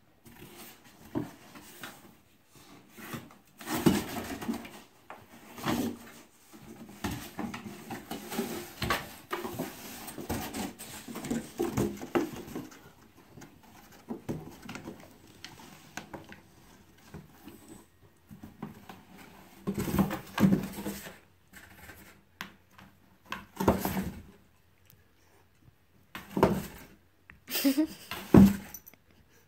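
A puppy pawing and nosing at a cardboard shipping box, pushing it about on a carpet: irregular cardboard rustling and scraping, broken by a few sharp knocks of the box.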